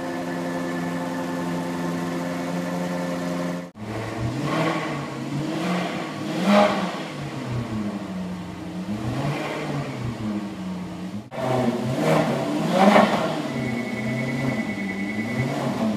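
Maserati GranTurismo V8 exhaust, first idling steadily. After a cut, the stationary engine is revved repeatedly: short blips that rise and fall in pitch, with the loudest revs a third of the way through and again after a second cut.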